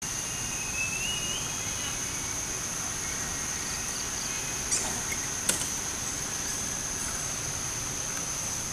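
A steady high-pitched insect drone, with a short rising whistle about a second in and two sharp clicks about five seconds in.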